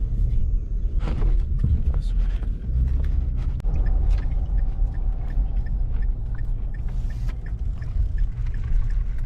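Low, steady rumble of a vehicle driving, with scattered light clicks and knocks.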